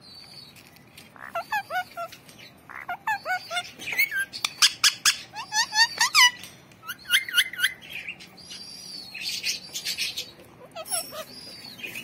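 Indian ringneck parakeet calling: a run of short chirps and squawks that glide up and down in pitch, busiest and loudest in the middle, with sharp clicks mixed in.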